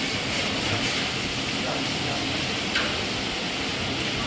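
Steady hissing background noise of a busy noodle-shop kitchen and dining room, with faint voices and a light clink or two.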